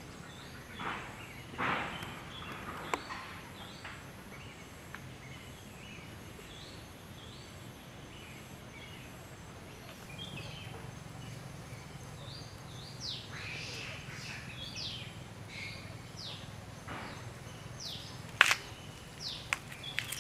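Outdoor forest ambience with a steady low hum and a few sharp clicks. From about halfway in come many short, high chirps, each quickly falling in pitch.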